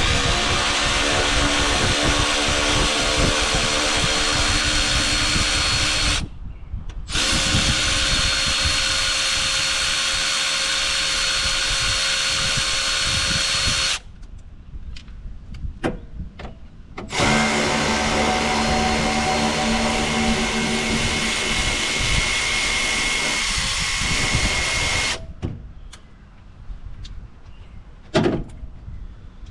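Handheld power tool running in three long runs of several seconds each, with short pauses between, as parts are taken off a pickup truck.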